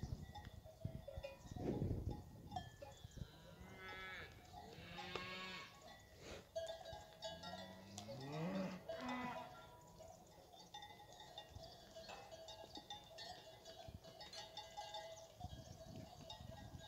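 Fighting-breed cows and calves mooing and bawling in a corral. There are calls around four to five seconds in, and a longer call rising in pitch at about eight seconds, over faint clanks.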